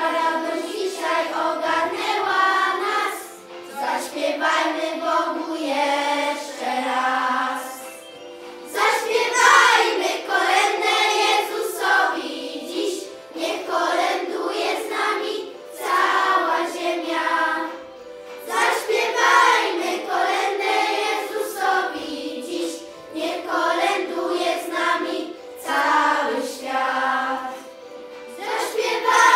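Children's choir singing a Polish Christmas carol together, in phrases of a few seconds with short breaks for breath between them.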